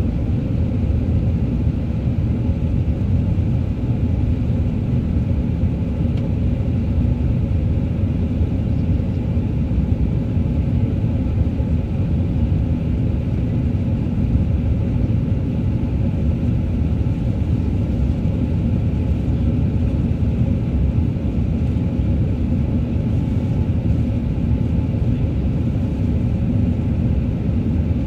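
Steady low rumble of an Airbus A380-800's jet engines and rushing air, heard inside the cabin during the climb after takeoff.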